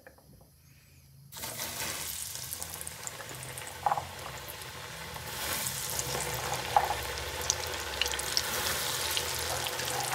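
Arrowroot-coated boiled chickpeas going into very hot cooking oil in a kadhai: a sizzle starts suddenly about a second in and carries on steadily with scattered pops as they deep-fry. The oil is fully hot, which is what makes them fry crisp.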